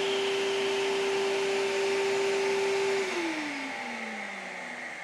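Table saw motor and blade running free with a steady whine, then switched off about three seconds in, the whine falling in pitch and fading as the blade coasts down.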